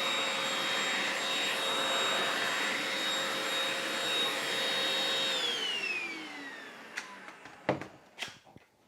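Oraimo UltraCleaner H3 cordless handheld vacuum cleaner running steadily with a whine over its airflow hiss, then switched off about five seconds in, the motor winding down with a falling whine. A few sharp knocks follow near the end.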